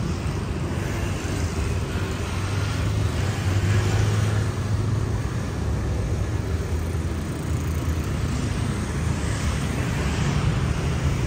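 Steady street traffic noise: a low rumble of cars and motor scooters running along the road.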